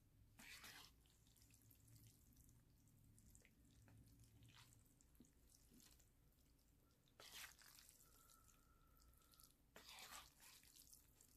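Faint, wet sounds of eating jjajangmyeon: a few brief sticky noodle and chewing noises as the sauce-coated noodles are lifted with chopsticks and eaten.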